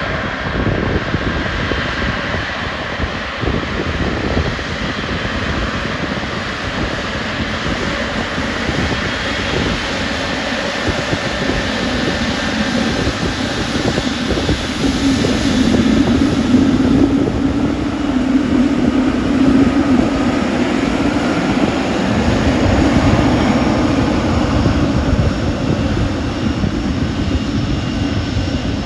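GE90 turbofan engines of a Boeing 777-300ER running at taxi power as the airliner taxis past: a steady jet whine and rumble. It grows louder about halfway through, with a low drone, as the engines pass closest.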